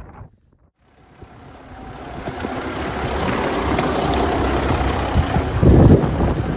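Vehicle engine running steadily, fading in after a short silence, with a louder low rumble about six seconds in.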